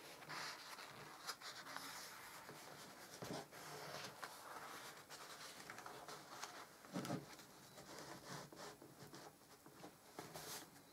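Faint rustling and rubbing of hands handling and turning the stiff black card pages of a photo album, with a soft knock about seven seconds in.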